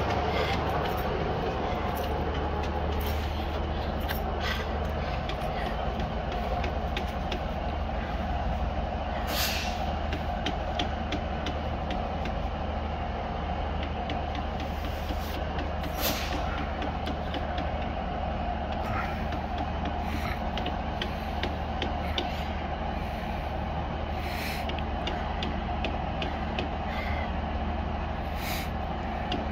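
Class 153 Sprinter diesel multiple unit standing with its underfloor diesel engine idling, a steady low drone. A few short hisses break in.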